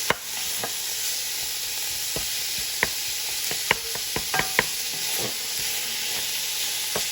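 Ground beef, onion and garlic sizzling in olive oil in a pot as a steady hiss, while it is broken up and stirred, with scattered sharp clicks and taps of the utensil against the pot, busiest around the middle.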